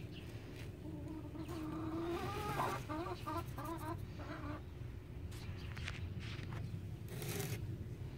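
Broody bantam Silkie hen calling from the nest as a hand reaches under her: a drawn-out wavering call, then a run of short clucks about three a second, the protest of a broody hen disturbed on her eggs. A brief rustle of wood shavings near the end.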